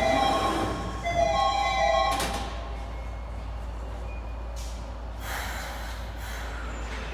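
Chime of old-type platform screen doors, a dissonant cluster of several tones sounding twice in quick succession. A sharp thud follows about two seconds in, then a few soft bursts of hiss.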